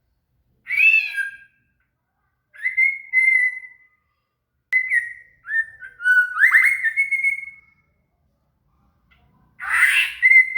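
White-rumped shama (murai batu) singing: short, clear whistled phrases with quick slurs and trills, in four bursts separated by brief silences. The longest phrase is in the middle, and the last starts near the end.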